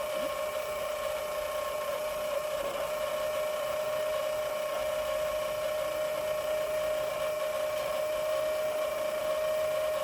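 Small electric motor running at a constant speed with a steady high whine.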